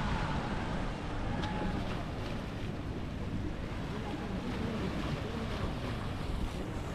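Wind buffeting the microphone, with a steady wash of sea surf beneath it.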